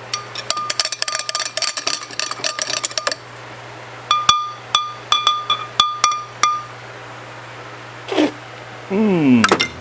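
Ratchet wrench clicking. First comes a fast spinning run of metallic clicks that each ring at the same pitch, then about seven slower single clicks as the bolts are tightened. A brief falling tone sounds near the end.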